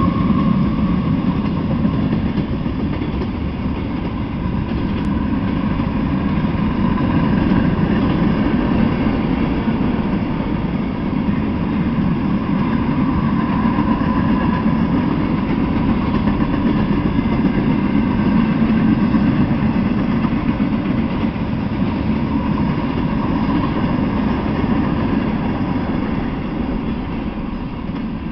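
Freight train passing at speed: a steady rumble of steel wheels on rail, with a BNSF diesel locomotive going by at the start and then hopper, tank and box cars rolling past.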